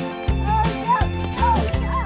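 Background music: a steady, repeating bass line with short gliding higher notes over it.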